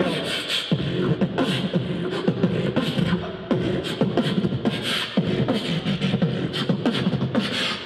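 Live beatboxing into handheld microphones: a fast, even rhythm of vocal kick-drum thumps with sharp clicks and hisses over them.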